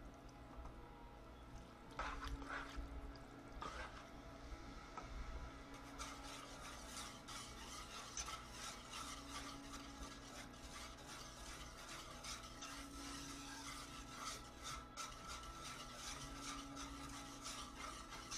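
A spoon stirring ground beef filling in a skillet, knocking on the pan twice early on. About six seconds in, a wire whisk starts scraping quickly and continuously around a saucepan of chili gravy.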